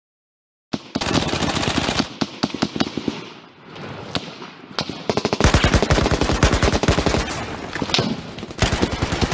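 Bursts of rapid automatic gunfire, machine-gun fire, starting about a second in after a moment of silence. It eases briefly in the middle and then turns into a heavier, unbroken stream of shots from about halfway through.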